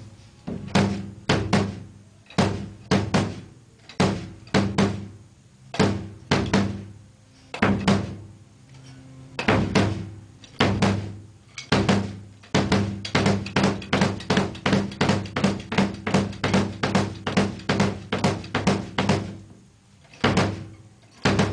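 Bass drum played with a foot pedal as a technique exercise: single and paired kicks at first, then a quicker run of about three to four strokes a second in the second half, with a short pause before a last few strokes.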